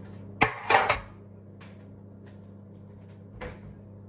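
Two sharp knocks and a short clatter about half a second in, then a faint knock near the end, over a steady low hum: kitchenware being handled and put down.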